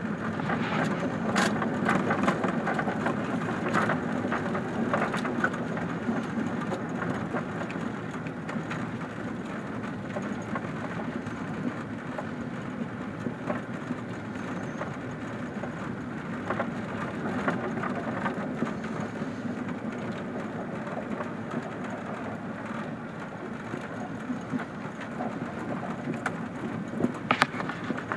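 A vehicle driving over a gravel road, heard from inside the cab: a steady engine and tyre rumble with gravel crunching under the tyres and scattered sharp clicks of stones, the sharpest about a second and a half in and near the end.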